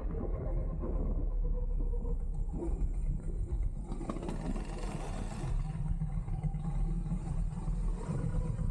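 Go-kart running on track: a steady low rumble with wind buffeting on the microphone, and a brief louder rush of noise about four to five seconds in.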